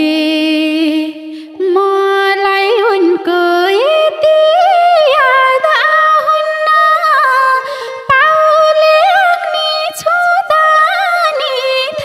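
Nepali lok dohori music between verses: a single lead melody slides and wavers between held notes, with ornaments, over the band's accompaniment.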